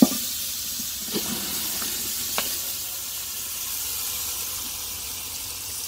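Marinated whole chickens sizzling steadily in hot oil in a large metal cooking pot, with a thump as they slide in at the start and a few light knocks after.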